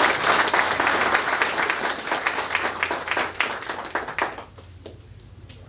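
Applause from a small crowd, the clapping fading out about four seconds in.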